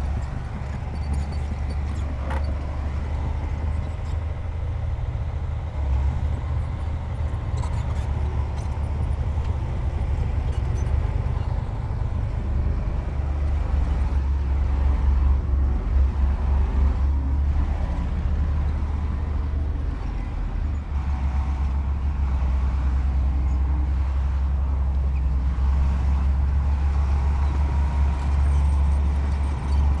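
Heavy diesel earthmoving machinery running steadily with a low rumble, with a few faint knocks.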